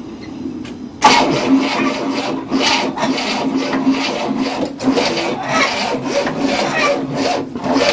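1967 Cadillac's 429 V8 cranked after its ignition timing was retarded; about a second in it bursts into life and runs roughly in uneven, rasping pulses, sounding much better.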